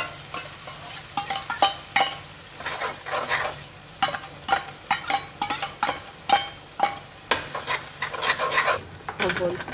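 A cooking utensil scraping and knocking against a kadai as a frying onion-tomato masala is stirred, with irregular strokes, some ringing briefly, over a steady sizzle.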